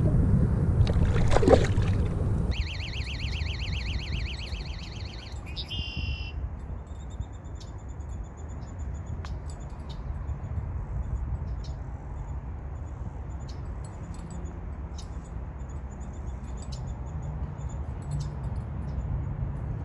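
Clothing and hands rustling close against the microphone for the first couple of seconds, then riverbank ambience: a steady low rumble with bird calls, first a fast trill for a few seconds, then a short call and scattered faint chirps.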